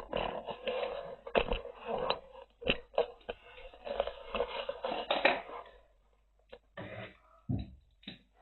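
Plastic wrapping crinkling and crackling, with many sharp clicks, as it is cut and pulled off a toy surprise ball; it dies away about six seconds in, leaving a few short rustles.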